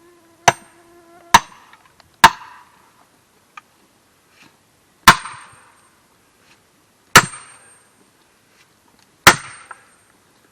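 Sledgehammer driving a steel splitting wedge into a block of ash: six sharp metallic blows, three close together and then three about two seconds apart, several with a brief high ring. A fly buzzes until the second blow.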